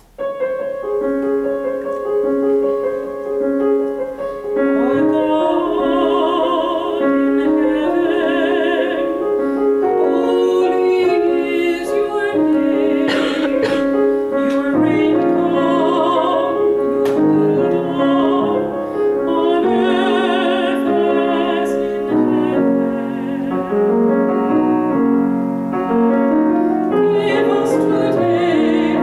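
Female solo voice singing with grand piano accompaniment. The piano begins alone, and the voice, with a strong vibrato, comes in about five seconds in.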